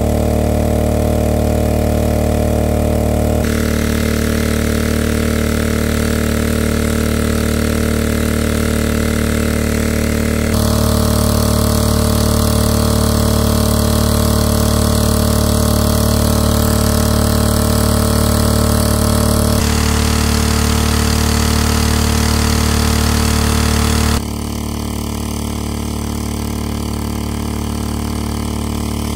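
Small petrol-engine water pump running steadily at a constant speed while it pumps water out of a pool. Its tone and loudness change abruptly a few times, dropping slightly near the end.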